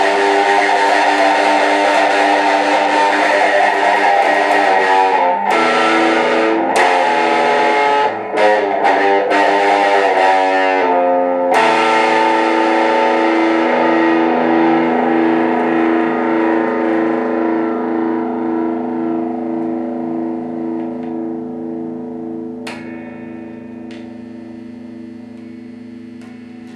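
Distorted electric guitar played through effects. A thick sustained chord gives way to a few short, chopped chords about midway, then a final chord is left to ring with a pulsing waver and slowly fades out, with a small click near the end.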